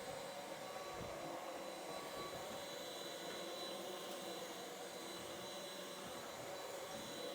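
Belife cordless stick vacuum running in turbo mode: a steady motor whine over rushing air.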